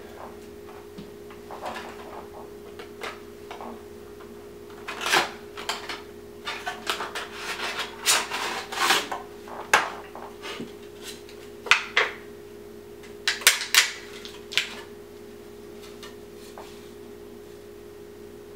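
A cardboard candy box being opened and a chocolate cross taken out of its wrapping: scattered rustles, clicks and crinkles, busiest through the middle, stopping a few seconds before the end.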